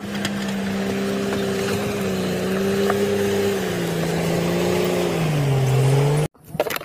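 Komatsu crawler bulldozer's engine running hard as the blade pushes broken concrete slabs, with a steady drone whose pitch sags near the middle and drops lower toward the end. The sound cuts off suddenly.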